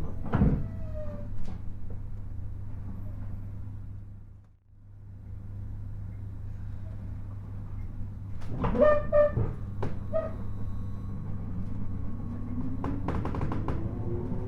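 Interior of a 719 series AC electric train with its steady transformer hum: a clunk and brake noise as it comes to a stop, a brief dropout about four seconds in, a few knocks and clunks, then the traction motors starting up with a whine that rises steadily in pitch as the train pulls away.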